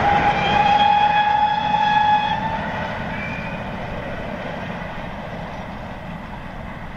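A steam locomotive's whistle sounds once for about two and a half seconds, a steady, slightly rising tone. Beneath it a goods train of box vans and a brake van rumbles past, fading as the train draws away.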